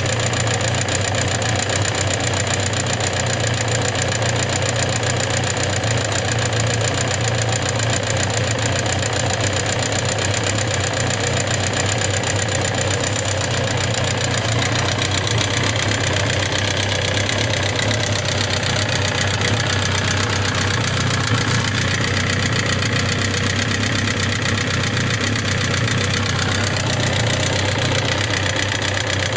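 Suzuki GSX750S Katana's inline-four engine running steadily at idle with a rapid rattling, clicking noise (kata-kata, kachi-kachi). The noise is of unknown cause: it is still there after the rocker arms, camshaft and cam chain parts were replaced and the tappet clearance adjusted.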